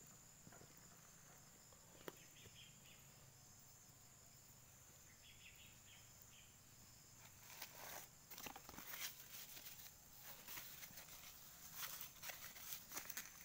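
Faint ambience with a steady high insect drone, a light click about two seconds in, then irregular rustling and crackling of dry leaf litter from about halfway through as someone moves about beside the fire.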